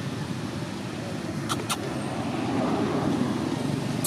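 Steady low background rumble, with two sharp clicks about a second and a half in.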